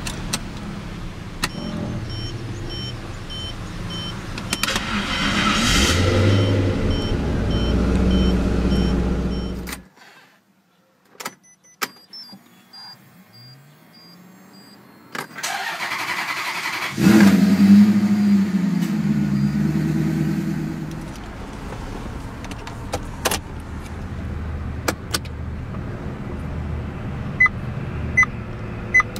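Maserati coupe V8s starting up, each with its instrument-cluster chimes. First a 3200 GT's repeating two-tone warning beeps, about two a second, run on while its engine cranks and starts. A Coupe/Cambiocorsa then gives a short beep before its engine catches loudly about 17 s in and settles into a steady idle. Near the end a GranTurismo idles under short door-open warning beeps.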